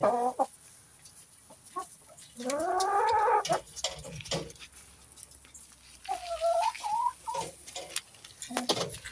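Chickens clucking and calling in short, separate calls, with one longer arching call about two and a half seconds in that is the loudest sound.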